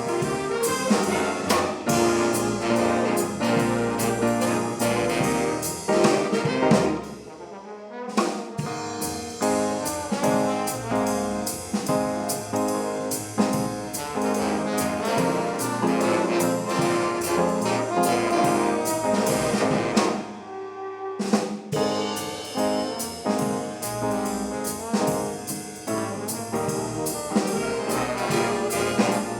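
A swing band playing with brass (trombones and trumpets) over a drum kit. The music breaks off briefly about seven seconds in and again about twenty seconds in, then comes back in full.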